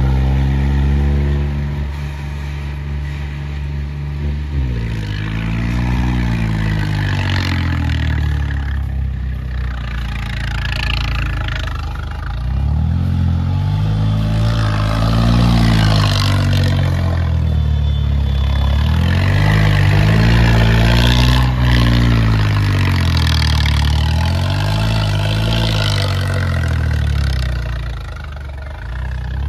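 Swaraj tractor's diesel engine running steadily at first, then revving up and down again and again, a swell about every two seconds, as the tractor is held up on its rear wheels in a wheelie.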